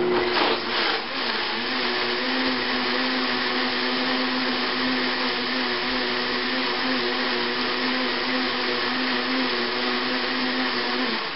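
Countertop blender on high speed, puréeing thawed strawberries and honey. The motor spins up at the start, runs steadily with a constant hum, and stops just before the end.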